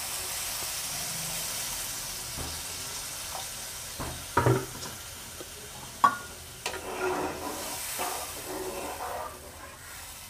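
Water poured into a hot kadai of fried taro and spice masala, sizzling and hissing loudest at first and then slowly dying down. A few seconds in, a spatula knocks against the pan several times and scrapes as the curry is stirred.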